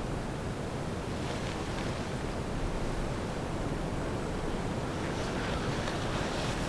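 Steady wind, an even rushing noise with no distinct events.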